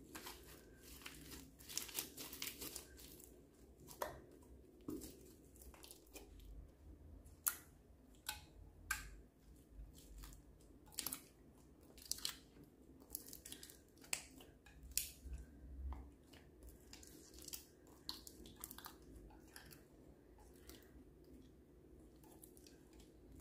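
Large mass of slime, some of it studded with foam beads, squeezed and folded by hand: irregular sticky crackles and small pops, thinning out over the last few seconds.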